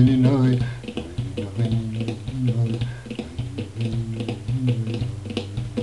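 A man's voice chanting a Persian ghazal in the traditional avaz manner: long held notes with pauses between phrases and a quick wavering trill right at the start. Light, irregular clicking runs behind the voice.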